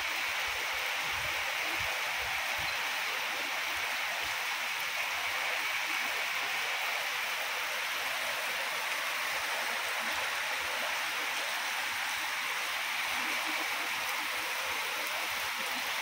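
Heavy rain pouring steadily in an even hiss, with rainwater running over the ground.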